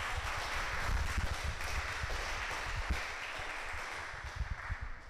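A roomful of people applauding, dying away near the end.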